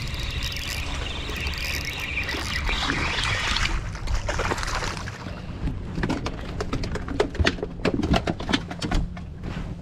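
Spinning reel being wound in, a steady whirring for the first three or four seconds. Then a run of sharp clicks and knocks from handling on the boat, over a low rumble.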